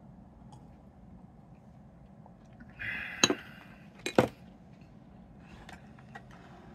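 A drinking glass set down on a wooden table: a short rush of breath, then a sharp knock, and a louder double knock about a second later. A few faint small clicks near the end, like chopsticks being handled.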